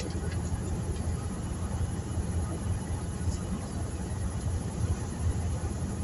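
A vehicle engine idling steadily, heard from inside the cab as a low, even rumble.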